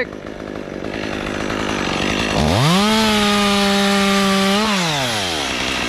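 Two-stroke chainsaw running at idle, then revved to full throttle about two and a half seconds in. It holds a high, steady pitch for about two seconds, then the throttle is released and the pitch slides back down to idle.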